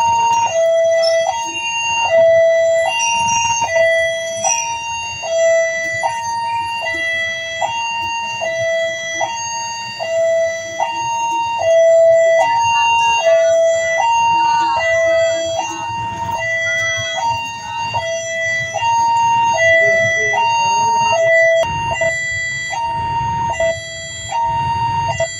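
Railway level-crossing electronic warning alarm sounding a two-tone alternation, a low note and a high note of about half a second each, repeating steadily. A low rumble rises under it near the end.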